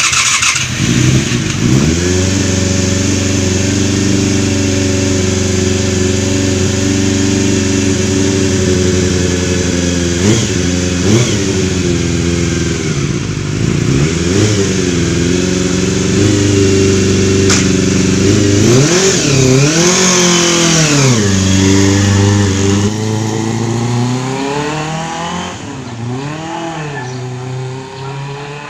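Yamaha FZR250's inline-four engine starting about a second in and idling, freshly tuned with its valve shims reset. It is blipped several times, with one long high rev about twenty seconds in, and grows fainter near the end.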